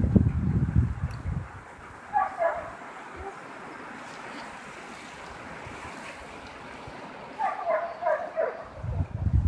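Huskies giving short high whines and yips, once about two seconds in and again in a longer run near the end, over wind buffeting the microphone, loudest at the start and near the end.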